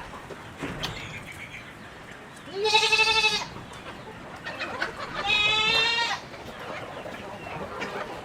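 A goat bleating twice, each call about a second long with a quavering, steady pitch, the first about three seconds in and the second about five and a half seconds in. Fainter short calls and clicks from farm fowl sound between them.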